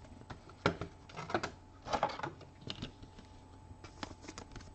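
Trading cards and card packaging being handled on a table: soft irregular clicks, taps and rustles, a few of them louder, with no steady sound underneath.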